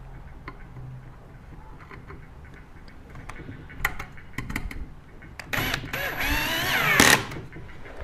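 Cordless drill-driver driving a screw into a wooden tabletop. A few sharp clicks come first, then about a second and a half of motor whine whose pitch shifts as the screw goes in, cutting off abruptly.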